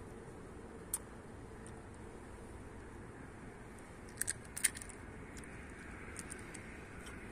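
Steady low background hiss with a few small sharp clicks: one about a second in, a quick cluster of them a little past four seconds, and a few fainter ticks near the end.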